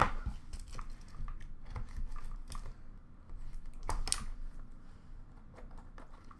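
Light clicks and scrapes of hands handling a small cardboard box and taking out a trading card in a clear plastic case, with sharper clicks at the start and about four seconds in.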